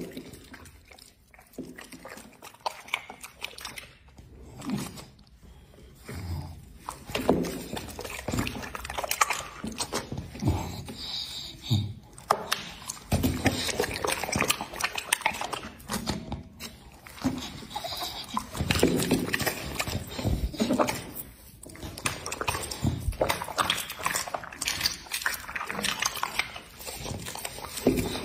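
A dog chewing and smacking its lips as it eats raw meat: wet, irregular chomps, smacks and licks. Sparse at first, then steady from about six seconds in.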